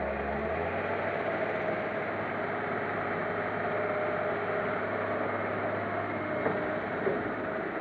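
Diesel engine of a Komatsu hydraulic excavator running steadily as it digs and lifts a bucket of soil toward a dump truck, with a couple of light knocks near the end.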